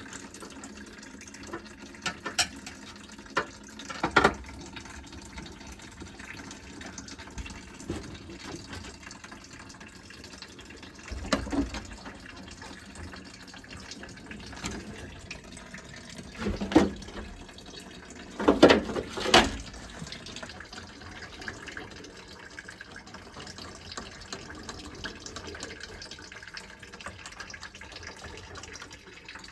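Water running steadily out of a gas combi boiler's drain point as the heating circuit is drained, with a few sharp knocks, the loudest a cluster about two-thirds of the way through.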